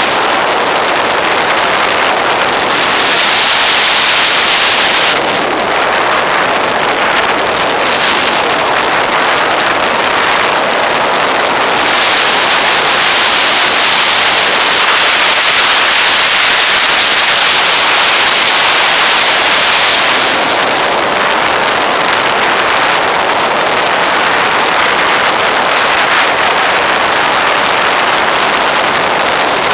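Motorcycle riding at speed: a steady rush of wind on the microphone mixed with engine and road noise. The rush swells twice, briefly a few seconds in and for several seconds around the middle.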